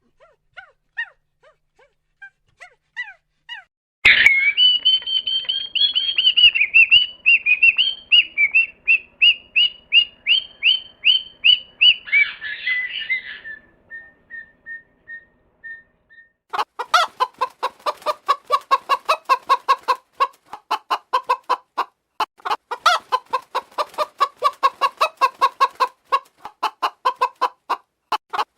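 Chickens calling: a run of loud, high-pitched repeated calls about four seconds in. From about halfway through comes rapid, steady clucking, several clucks a second.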